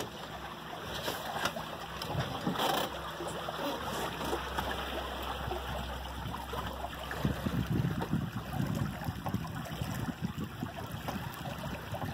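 Water rushing and splashing along the hulls of a home-made trimaran under sail, with irregular low rumbles in the second half.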